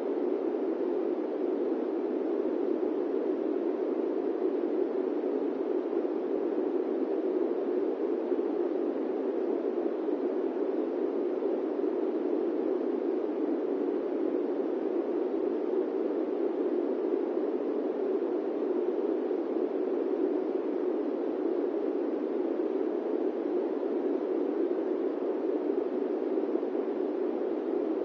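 Steady airplane-cabin white noise: an even, unchanging rushing hiss centred in the low middle range, with little deep rumble and no separate events.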